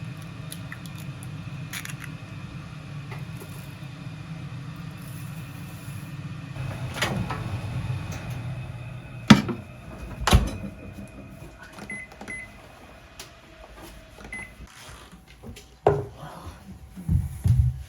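A steady low hum from a household appliance stops about nine seconds in. Two sharp clunks follow, then a few short high beeps, and more knocks near the end.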